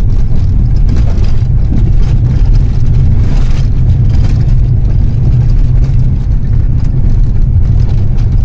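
A Maruti Suzuki Alto driving along a mountain road, heard as a loud, steady low rumble of road, wind and engine noise.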